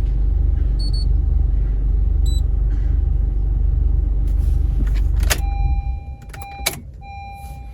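Honda Accord engine idling steadily, then shut off about five seconds in with a click. Repeated electronic beeps follow, on and off in an even pattern, with two short high beeps earlier on.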